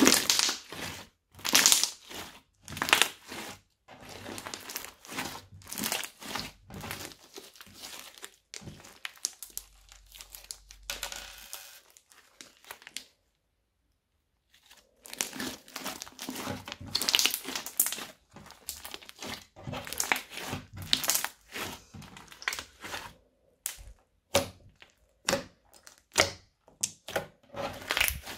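Crunchy bead-filled slime being squeezed and pressed by hand, crackling and crunching in quick irregular bursts, with a pause of about two seconds near the middle.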